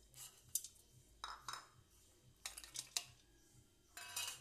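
Garlic cloves and ginger pieces dropped by hand into a stainless-steel mixer-grinder jar of roasted peanuts, giving about five short rattles and clinks.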